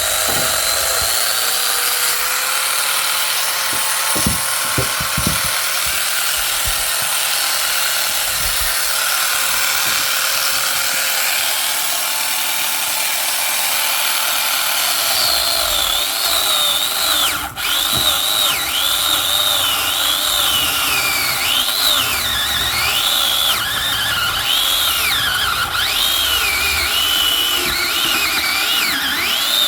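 A power saw running steadily while cutting firewood. From about halfway through, its high whine wavers up and down as the load on the blade changes.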